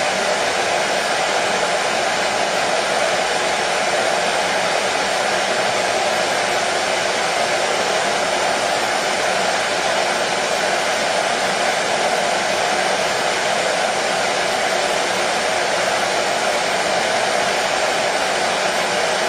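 Hair dryer running steadily, a constant blowing whoosh with a hum in the low-middle range and no change in speed.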